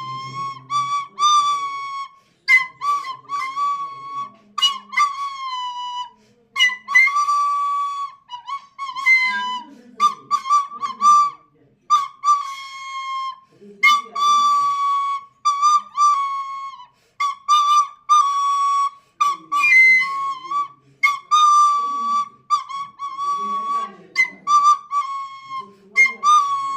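Flute played by an untrained beginner: a run of short notes, mostly on nearly the same high pitch with slight wobbles, broken into phrases by brief pauses.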